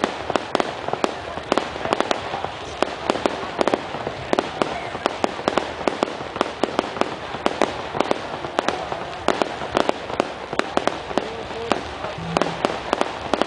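Fireworks display: aerial shells bursting in a rapid, unbroken barrage of sharp bangs and crackles, several a second.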